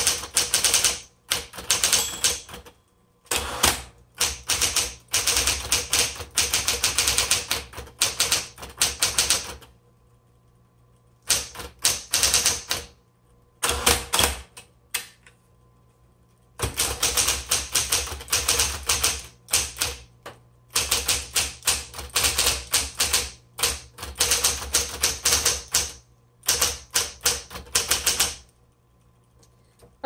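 Smith Corona Coronet Automatic electric typewriter being typed on: rapid runs of key strikes in bursts of several seconds, broken by short pauses. A faint steady hum carries on through the pauses.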